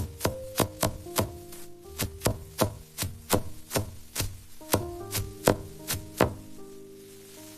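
Knife chopping on a wooden cutting board in quick, even strokes, about two to three a second, that stop near the end.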